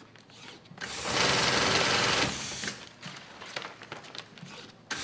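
Jentschmann industrial sewing machine stitching through heavy sailcloth along the sail's leech, running steadily for about a second and a half from about a second in, then stopping. A few light clicks follow in the pause, and the machine starts again right at the end.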